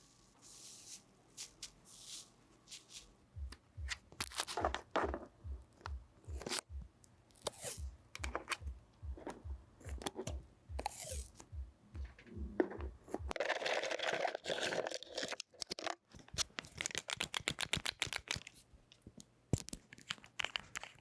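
Close-miked eyelash extension ASMR sounds: adhesive tape tearing and crinkling, with sharp tweezer clicks. A soft low pulse runs about two and a half times a second through the first half, a dense rasping stretch comes about two-thirds of the way through, and a quick run of clicks follows it.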